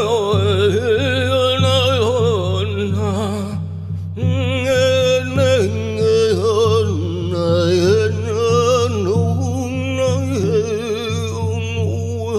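A man's voice singing long, wordless tones that waver up and down with strong vibrato, over a steady low drone. The voice breaks off briefly for a breath about four seconds in, then carries on.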